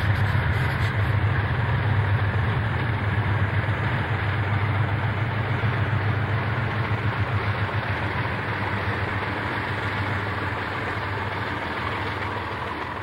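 A freight train passing close by. The diesel locomotives' engines give a steady low drone over rolling noise, and the sound slowly fades as the boxcars follow them past.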